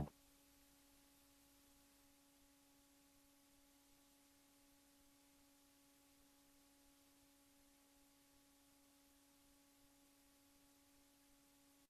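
Music cuts off at the very start, then near silence with a faint steady hum.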